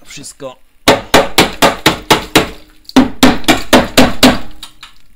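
Hammer striking the rusty steel inner reinforcement of a car's sill, about fifteen sharp metal-on-metal blows at roughly four a second, in two runs with a short pause between them.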